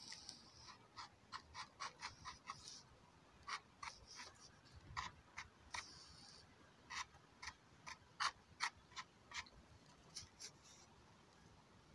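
Faint, irregular clicks and scratches of granular smokeless powder being pushed and rubbed by a fingertip on a stone slab.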